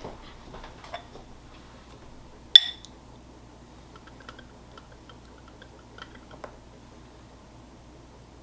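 A metal spoon against a mixing bowl: one sharp ringing clink about two and a half seconds in, with a few faint light taps and scrapes as sticky marshmallow cream is spooned from the bowl.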